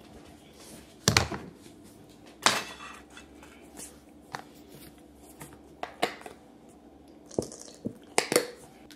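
Plastic squeeze bottles with plastic caps set down on and picked up from a granite countertop: several sharp knocks and smaller handling clicks.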